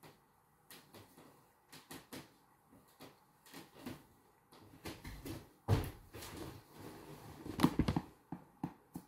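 Bare feet stepping, turning and landing on a hardwood floor: irregular soft knocks and thumps, sparse at first, then busier and louder with heavier low thuds from about five seconds in.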